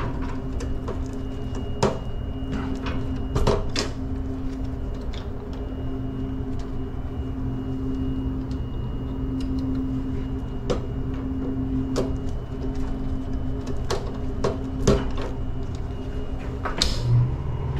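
Scattered clicks and knocks of a screwdriver and wires being worked in an open breaker panel, over a steady machine hum. Near the end a lower hum starts: the air compressor kicking on once its circuit is fed from a good breaker, showing its original breaker is bad.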